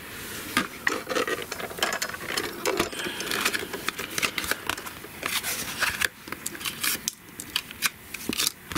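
A translucent plastic embossing folder and paper being handled on a cutting mat: irregular light clicks, taps and scraping rustles.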